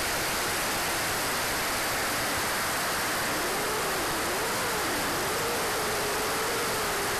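Steady rush of airflow and turbine noise picked up by the onboard camera of an RC jet in flight, powered by a Swiwin SW60 turbine. A faint tone wavers up and down in pitch past the middle, then holds steady.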